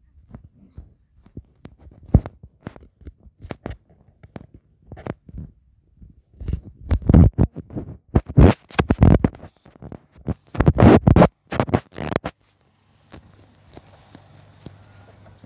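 Handling noise on the microphone: irregular rustling, scraping and knocking as something rubs against it, loudest in rough bursts from about seven to twelve seconds in.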